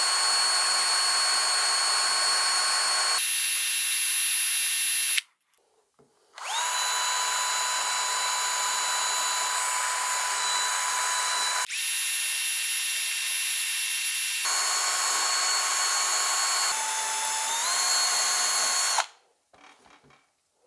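High-speed handheld rotary tool whining as its grinding bit cuts into a piece of quartzite, taking off excess stone to grind flat faces. About a quarter of the way in it stops briefly, then spins back up with a rising pitch; later its pitch steps up once, and it stops shortly before the end.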